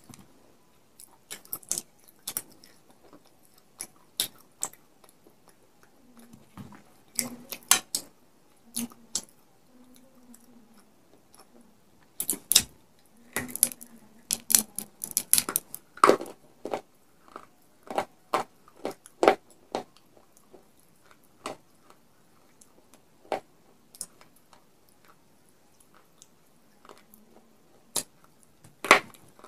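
Close-miked crunching and chewing of brittle baked-clay pot pieces coated in white chalk (khadi) paste: irregular sharp cracks and crunches, densest from about twelve to twenty seconds in.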